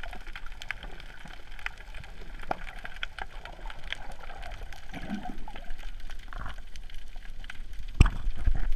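Underwater gurgling of water with scattered small clicks and crackles. About eight seconds in comes a sudden loud thump and rough splashing as the camera breaks the sea surface.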